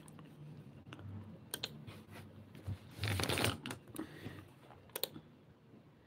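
Handling noise from a phone held close to the microphone: scattered light taps and clicks, with a brief louder rustle about three seconds in.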